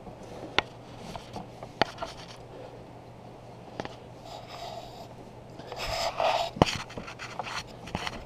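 A broken, seized exhaust manifold bolt in a 351 Windsor cylinder head being turned out by hand with a T-handle tool, a little at a time. There is soft metal scraping and creaking with a few sharp clicks, and a louder scrape about six seconds in.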